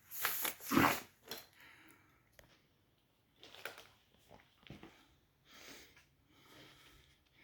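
Steam car-wash machine's spray gun hissing in short bursts, a loud burst about a second long at the start, then several quieter, briefer bursts.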